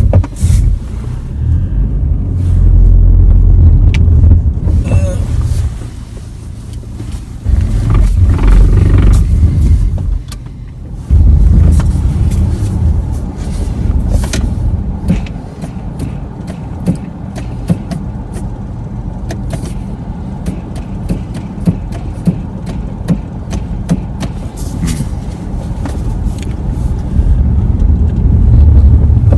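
A car driving slowly over fresh snow, heard from inside the cabin: a heavy low rumble of engine and tyres that swells and eases several times, loudest near the start and the end, with many small clicks and knocks throughout.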